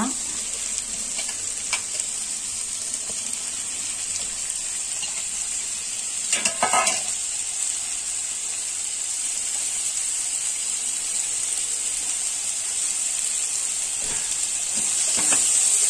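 Sliced onions sizzling steadily in hot butter and oil in an iron kadai, just tipped into the pan, with one brief louder sound about halfway through.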